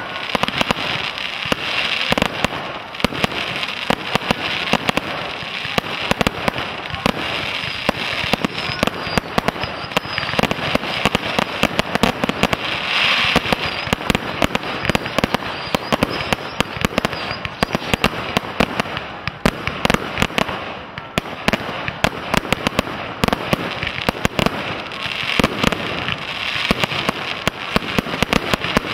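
Professional fireworks display: a dense, unbroken string of launches and shell bursts, many bangs a second over constant crackling, swelling louder in places.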